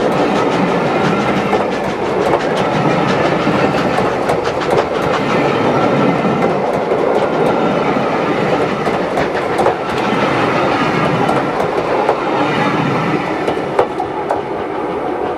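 Train running along the line, a steady rushing noise with frequent sharp clicks of wheels over the rail joints.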